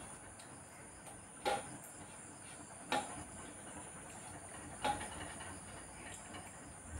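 Rice being eaten by hand from metal plates: three short, sharp clinks against the plates, one to two seconds apart, over a steady faint hiss.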